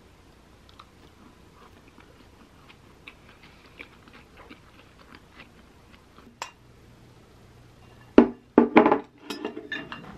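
Close-up chewing with small soft crunches while eating a rice bowl. Near the end comes a louder clatter as a wooden spoon and chopsticks scrape and knock against the bowl.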